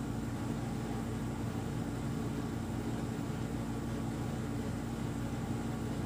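Steady low hum with a faint hiss: room background noise.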